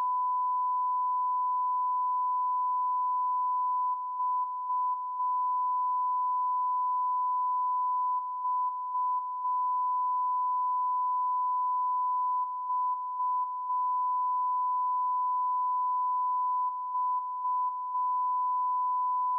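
Broadcast line-up test tone: a steady, pure 1 kHz tone broken every four seconds or so by a quick group of four short gaps.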